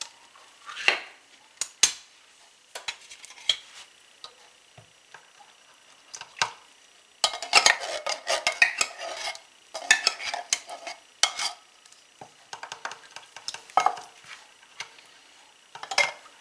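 A spoon clinking and scraping against a tin can and a glass mixing bowl as condensed tomato soup is emptied out and stirred into a soup-mix broth. It starts as scattered taps, and the clatter gets thicker and busier about seven seconds in.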